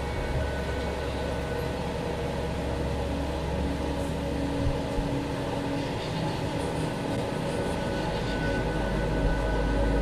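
Steady low rumble of a car driving on a wet road, heard from inside the cabin, growing slightly louder near the end.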